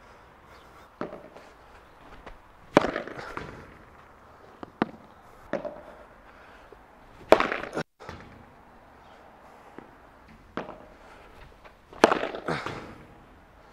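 Padel smashes with a Cork Supreme II Hybrid racket: three loud, sharp pops of racket on ball, about four and a half seconds apart, each with a short ringing tail. Softer knocks of the ball come between them.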